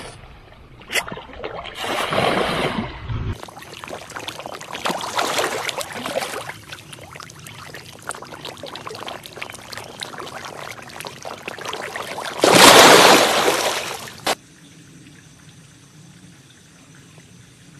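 Splashing and trickling water as grass carp feed at the pond's surface, with a louder rush of water lasting about two seconds about two-thirds of the way through, then only a faint steady hiss.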